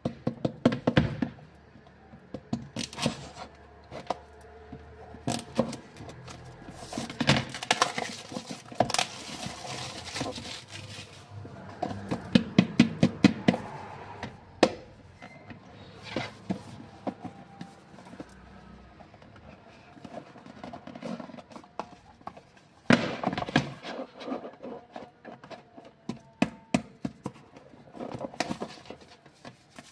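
A smartphone's retail box and packaging being handled: a run of taps, thunks and clicks with stretches of rustling and scraping, and clusters of knocks about halfway through and again later.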